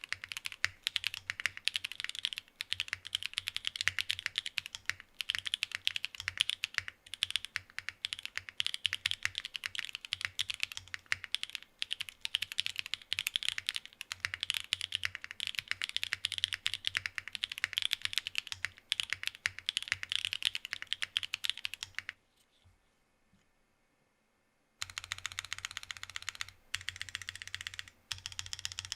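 Fast continuous typing on a MODE Envoy mechanical keyboard with Obscura linear switches in a carbon-fibre plate, gasket-style lattice block mount and no foam, with Cherry-profile keycaps: a dense stream of key clacks. The typing stops for a couple of seconds near the end, then resumes.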